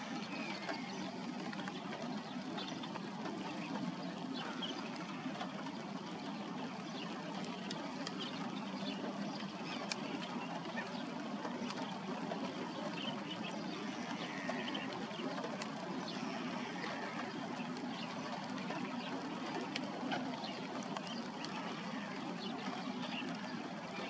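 Light rain pattering steadily on shallow water, with many small drip and splash ticks and faint bird calls now and then.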